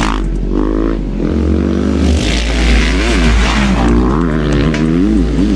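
Off-road motorcycle engine revving hard, its pitch rising and falling again and again as the rider works the throttle through the gears.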